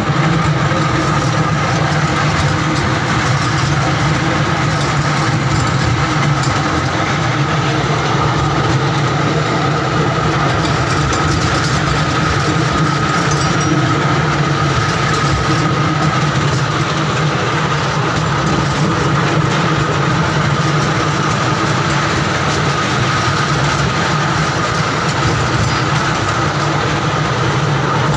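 Small amusement-park ride train running along its narrow track: a steady, loud motor hum with a constant high whine over it, heard from a seat in the car.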